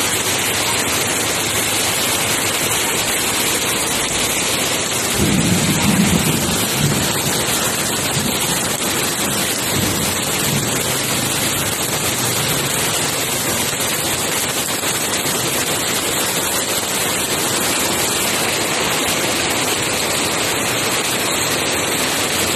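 Heavy rain pouring steadily onto a water-covered street, a dense even hiss. About five seconds in, a low rumble rises under the rain for a couple of seconds, with a fainter one a few seconds later.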